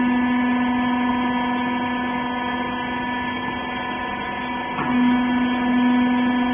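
Clothes baler's hydraulic power unit running with a steady hum: a strong low tone with fainter higher tones above it. A brief knock comes a little before the end, and the hum is slightly louder after it.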